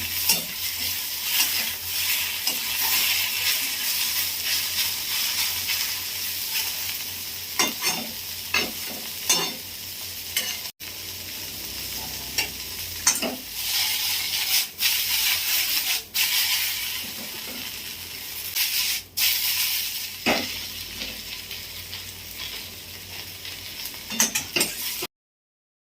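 Thinly sliced okra sizzling as it fries in hot oil in a kadai, stirred with frequent scraping and knocking against the pan. The sizzle drops out briefly a few times and stops abruptly near the end.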